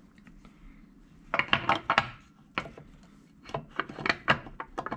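Cast aluminium oil pump housing being test-fitted by hand against an engine block, clinking and scraping on the metal. The knocks come in two clusters, about a second and a half in and again around three and a half to four and a half seconds.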